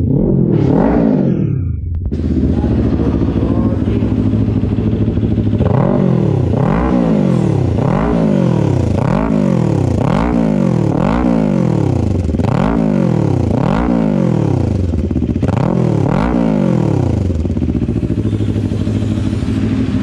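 Kawasaki Ninja 400's parallel-twin engine through an M4 full-system aftermarket exhaust, revved once near the start and then idling. From about six seconds in, the throttle is blipped about a dozen times, roughly once a second, each rev rising and falling, before the engine settles back to idle near the end.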